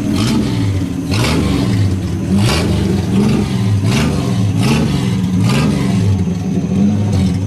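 Plymouth Valiant slant-six (inline six-cylinder) engine running with no muffler, its exhaust cut off short. The throttle is blipped repeatedly, about six or seven quick revs that each rise and fall back toward idle.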